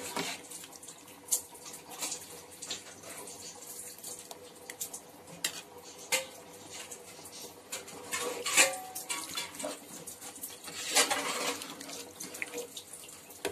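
Metal ladle stirring rice in watery chicken gravy in a steel pot, with scattered clinks and scrapes against the pot and two louder scrapes about 8 and 11 seconds in.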